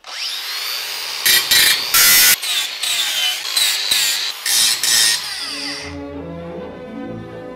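Makita angle grinder spinning up with a rising high whine, then cutting and grinding steel in several loud bursts. Its whine falls away about six seconds in as music takes over.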